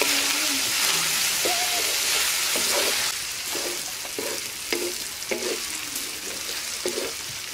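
Sliced onions sizzling in hot oil in a large metal wok, stirred with a wooden spatula that scrapes through them in repeated strokes. The sizzle is louder for the first three seconds, then drops.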